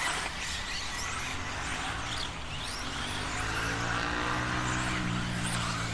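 Field of 1/10-scale electric 4WD RC buggies racing around the track, their motors giving short high-pitched whines that rise and fall as they accelerate and brake, over a steadier lower hum that wavers in pitch.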